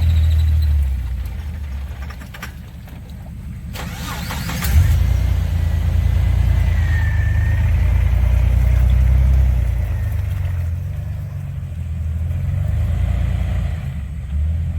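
Off-road vehicle's engine running with a deep rumble, easing off about two seconds in, then revving up sharply near five seconds and held hard for several seconds before easing back, as the vehicle works through a deep mud hole.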